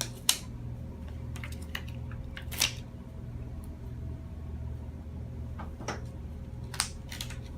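Handling noises from electrical-stimulation electrodes and their leads being placed on a patient's back: a few light rustles and sharp clicks, three of them louder, over a steady low hum.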